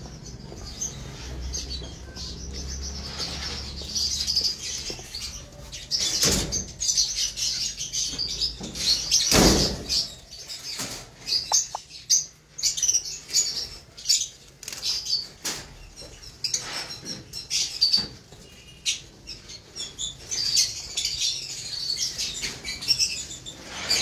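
A flock of caged lovebirds chirping in a continuous high chatter, with a couple of louder bursts of wing flapping about six and nine and a half seconds in.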